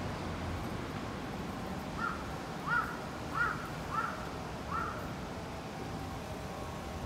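A bird calling five times in a quick series, the calls about two-thirds of a second apart, over a steady background hum.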